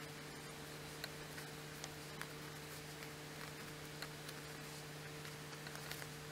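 Faint ticks and rustles of a needle and thread being worked through cotton fabric in a loose hand-sewn running stitch, a few small clicks a second or so apart, over a steady electrical hum.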